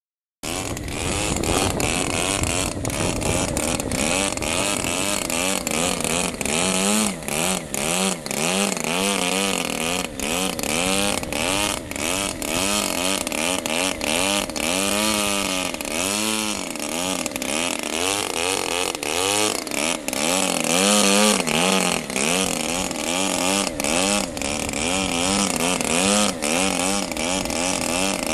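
DLE-55 55cc single-cylinder two-stroke gasoline engine of a large RC aerobatic plane running, its pitch rising and falling over and over as the throttle is worked to hold the plane in a hover. It cuts in suddenly about half a second in.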